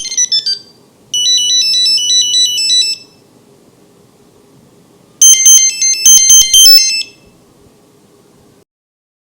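Nokia 2100 monophonic ringtones beeping out melodies one note at a time. A phrase of sustained beeps starts about a second in and lasts about two seconds. After a pause, a faster burst of notes follows around five seconds in and lasts about two seconds.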